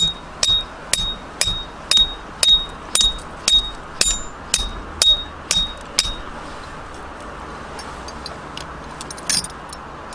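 Steady hammer blows on metal, about two a second, each with a short high ring, stopping after about six seconds. A few light taps follow, then one sharper metallic clink near the end.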